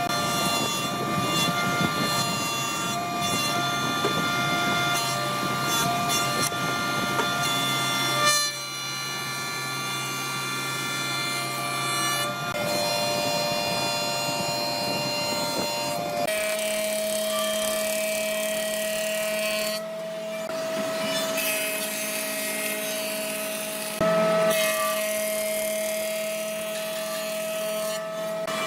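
Power woodworking machines running and cutting wood: a steady motor tone over the rasp of the cut. The sound changes abruptly four times.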